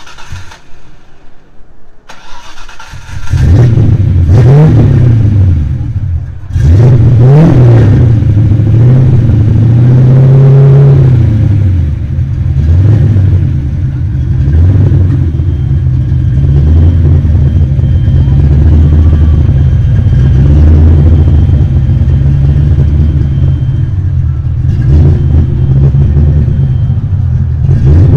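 Fox-body Ford Mustang's engine starting about three seconds in, revved twice with a brief dip between, then idling loudly with a wavering, uneven note.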